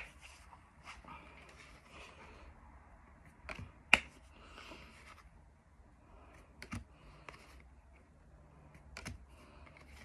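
Pokémon trading cards being handled and flipped through: quiet sliding and rustling of card stock with a few scattered sharp clicks, the loudest about four seconds in.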